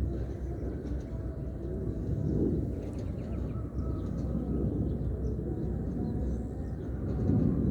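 Outdoor background noise: a steady low rumble with faint higher sounds over it.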